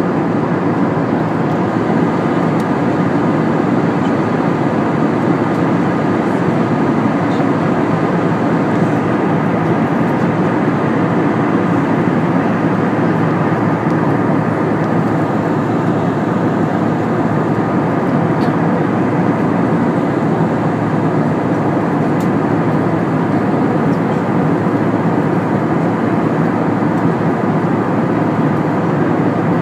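Steady jet airliner cabin noise heard from a window seat beside the wing: the turbofan engines running and air rushing past the fuselage, with faint steady whines over the even rush.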